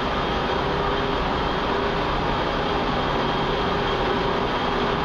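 Subway-station escalator running while it is ridden: a steady mechanical drone with a faint constant hum.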